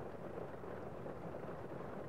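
A steady, muffled rumbling noise without any distinct tone.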